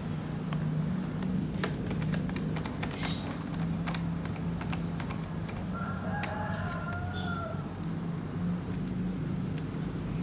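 Small screwdriver turning screws into a laptop's plastic bottom cover: light, irregular clicks and ticks of the bit, screws and handling, over a steady low hum.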